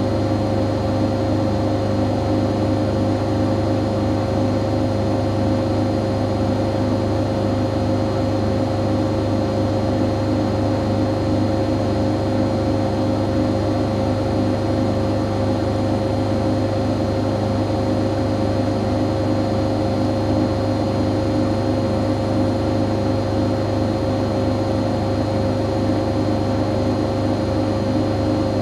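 Siemens Siwamat iQ 716 washing machine running steadily: a constant motor hum with a steady high tone over it.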